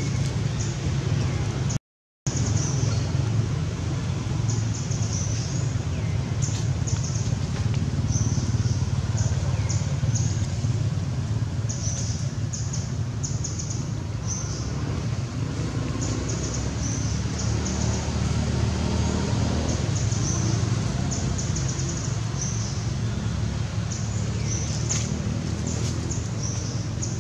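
Steady low outdoor rumble with clusters of short, high-pitched chirps throughout, cut by a brief dropout to silence about two seconds in.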